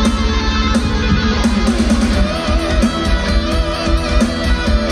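Slow hard rock music with electric guitar over a steady drum beat. A lead guitar line bending in pitch comes in about two seconds in.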